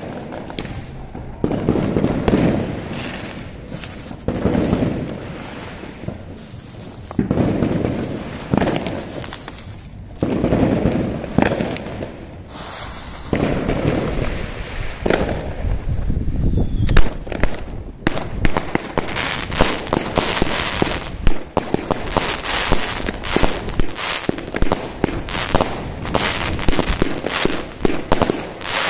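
Fuse of a Zena Kracherblitz 25 mm, 130-shot compound firework cake sputtering, then the cake firing a rapid, continuous string of shots that burst overhead. The first dozen seconds hold loud, irregular rumbles and bangs.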